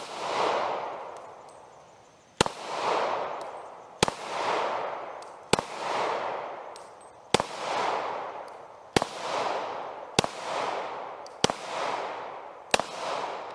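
Handgun fired nine times at an unhurried pace, roughly one shot every one and a half seconds. Each sharp crack is followed by a long rolling echo that dies away over about a second.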